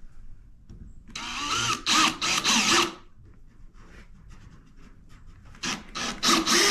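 Power drill driving a wood screw into a countersunk pilot hole in pine, run in short trigger bursts. Several bursts come over about two seconds, then a pause, then more bursts near the end.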